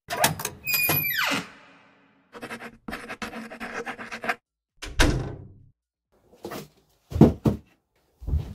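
A run of knocks and heavy thuds with rustling between them, from someone getting up out of a chair and going to answer the door. The loudest thuds come singly near the end.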